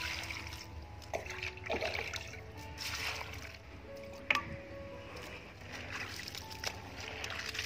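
Water splashing and trickling as cut cauliflower florets are rinsed, poured over with a small metal bowl dipped into a basin of water, with one sharp knock about four seconds in. Background music plays throughout.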